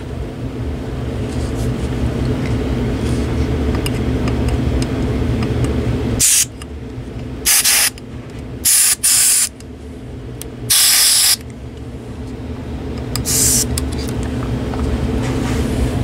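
Can of compressed air blowing dust out of a computer power supply's vents in about six short hissing bursts, starting about six seconds in, the longest near eleven seconds. A steady low rumble runs underneath.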